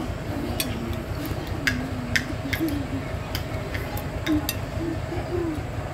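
Forks and spoons clinking against ceramic plates while eating: a handful of sharp, irregularly spaced clicks. Under them run a steady low rumble and faint background voices.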